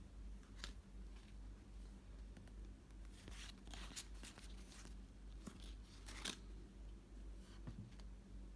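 Faint handling noises from a trading-card starter deck and its packaging: soft rustles and small clicks, busiest about three to four seconds in and again around six seconds, over a low steady hum.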